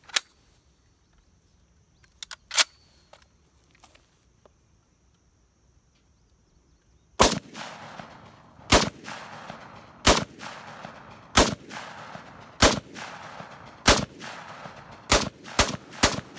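Left-handed M14 semi-automatic rifle in 7.62×51mm NATO firing in the open. A few faint clicks come first. About seven seconds in the shots begin, roughly one every second and a quarter, each with a short echo tail, and they come quicker near the end.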